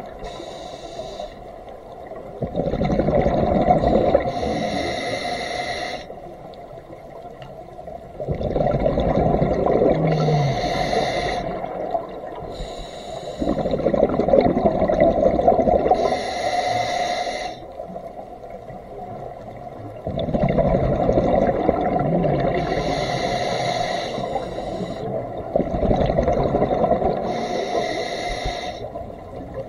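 Scuba diver breathing through a regulator underwater: each breath is a short hissing inhale followed by a longer rush of exhaled bubbles, about five breaths in a slow, even rhythm.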